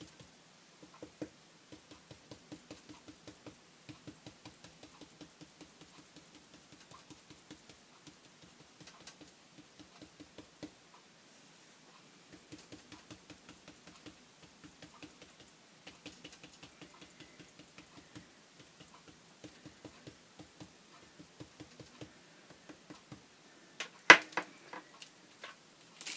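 A paintbrush stippling black acrylic paint through a plastic stencil onto card: quick, light dabbing taps at about four a second, with a short pause partway through. Near the end there is a louder crackle and knock as the plastic stencil is lifted off the page.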